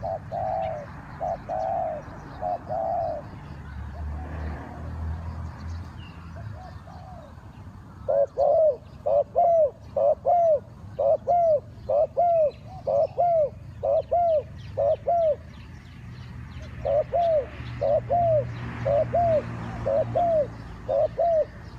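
A dove cooing in runs of short, arched notes, about two a second: a few at the start, then two longer runs with a pause of about a second and a half between them.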